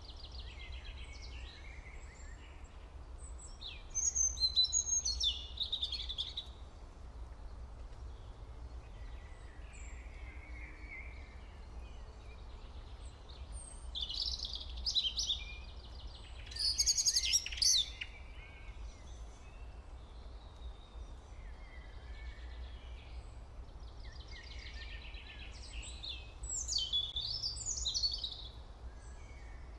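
Birds singing in several short bursts of quick, high-pitched chirping, with pauses between phrases, over a faint steady low hum.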